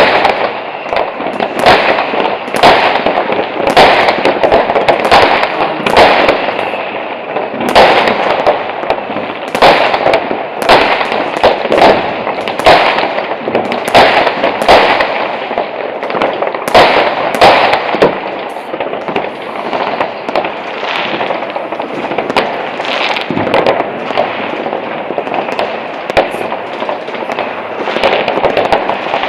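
Many fireworks going off at once: aerial rockets bursting and firecrackers banging several times a second, over a continuous haze of crackling and more distant bangs. The loudest bangs come thickest in the first two-thirds and thin out a little after that.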